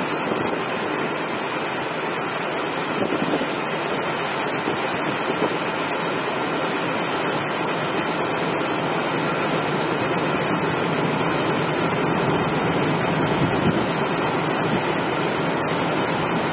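Steady rushing noise of wind on the microphone mixed with sea water, as heard out on the water.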